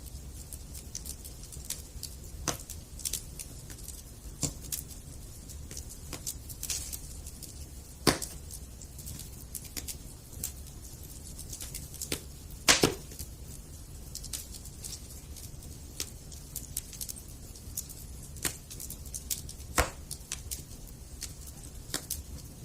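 Campfire crackling: irregular snaps and pops of burning wood, with two much louder pops, about a third and just past halfway through.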